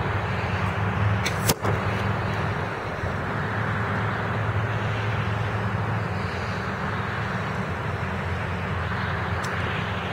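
A single sharp crack from a Parker Tornado F4 crossbow shot about a second and a half in, over a steady, noisy low rumble.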